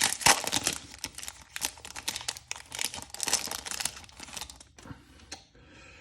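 Foil wrapper of a Topps Chrome baseball card pack being torn open and crinkled, crackling for about four seconds and then dying away to a few faint rustles near the end.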